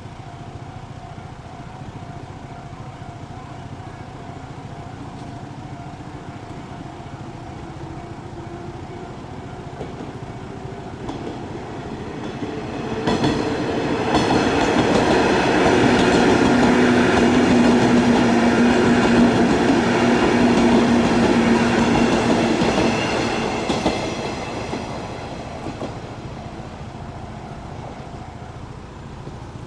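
A JR 103 series electric train passing over a level crossing. Its sound builds from about ten seconds in with a slowly rising motor whine, stays loud for about ten seconds as the cars run by, then fades away.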